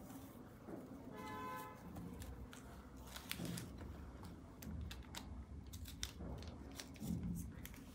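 Faint rustling and light clicks of sunglasses packaging being handled as a frame is unwrapped from its bag. A brief faint tone sounds about a second in.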